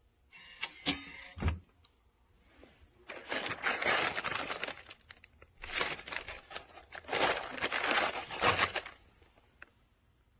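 Handling noises: a few sharp clicks and knocks, then two stretches of rustling and scraping, each a couple of seconds long.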